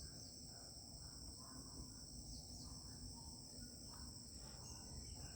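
Faint, steady, high-pitched insect chorus, with a few soft short chirps scattered through it.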